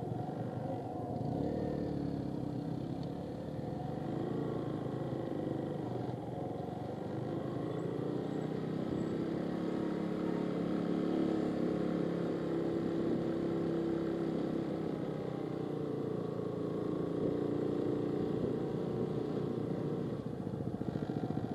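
Motorcycle engine running at low road speed, its pitch rising and falling gently with the throttle.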